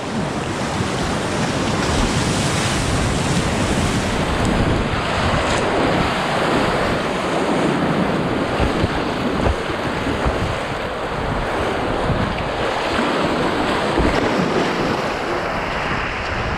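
Whitewater rapid rushing loudly and steadily around a kayak as it runs through the waves, with wind buffeting the action camera's microphone.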